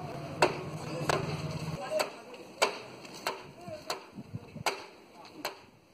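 Regular sharp chopping blows into wood, about one every 0.7 seconds. A low steady hum stops a little under two seconds in.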